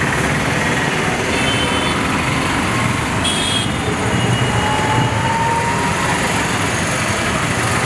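Steady street traffic noise, with a few faint brief tones over it.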